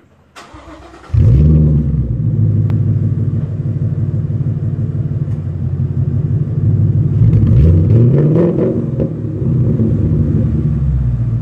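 2015 Mustang GT's 5.0-litre V8 starting through a Bassani exhaust. It fires about a second in with a loud flare, settles into a steady idle, and gets one brief rev that rises and falls around seven to eight seconds in before dropping back to idle.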